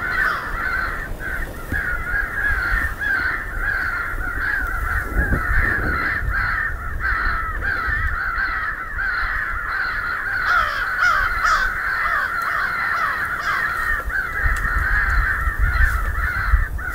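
Crow caws, many overlapping in a dense, unbroken chorus, with a low rumble underneath.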